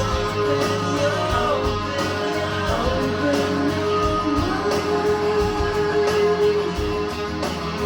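Guitar music with a singing voice and a steady beat, played back over an audio system.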